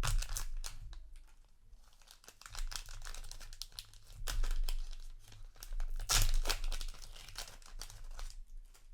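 Trading-card booster pack wrapper being torn open and crinkled by hand, in several irregular bursts of rustling and tearing.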